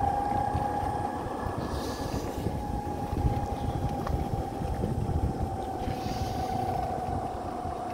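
Vehicle on the move at a steady speed: a steady engine whine that sinks slightly in pitch, with wind buffeting the microphone underneath.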